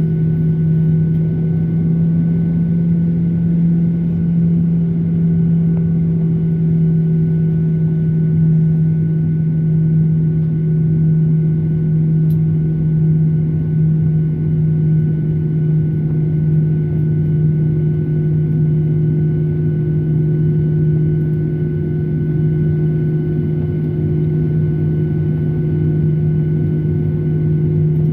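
Boeing 737-800's CFM56-7B turbofan engines running at a steady pitch: a constant low drone with a thin steady whine above it and a rush of air noise.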